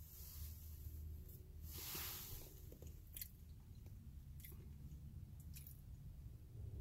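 Faint mouth sounds of a man tasting a small squirt of liquid from a syringe: a couple of soft breathy hisses, then a few small lip smacks and tongue clicks.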